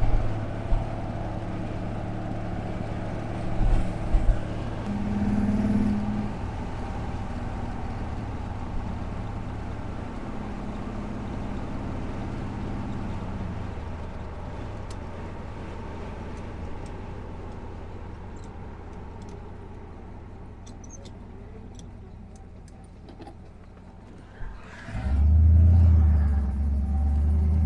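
1979 Chevrolet Corvette's V8 with dual exhaust running as the car drives, heard from inside the open-topped cabin. The engine note slowly fades from about halfway, then swells much louder and deeper about three seconds from the end.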